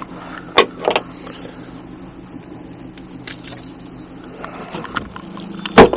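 A steady low mechanical hum with a few sharp knocks, the loudest one just before the end.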